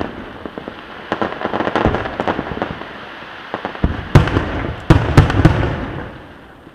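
Aerial fireworks going off: a run of sharp crackling bursts, then several loud booms with a low rumble about four to five and a half seconds in, dying away near the end.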